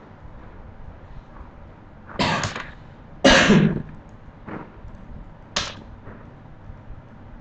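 A man coughing close to the microphone: a few short, sudden coughs, the loudest about three seconds in.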